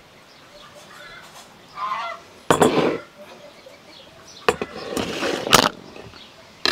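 Geese honking: a short call about two seconds in, then loud harsh honks about halfway through and again a couple of seconds later.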